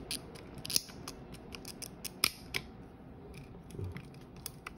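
Small plastic-and-metal clicks and handling noises from a Minolta SRT101 35 mm film camera as film is being threaded onto its take-up spool, with a few sharp clicks, the loudest a little past two seconds in.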